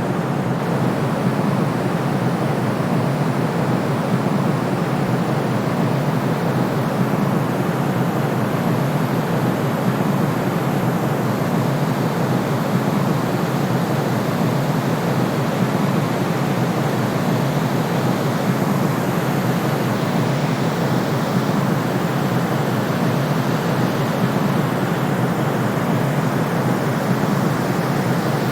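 Steady white noise: an even, unbroken hiss, fuller in the low-middle range than in the highs, with no change in level.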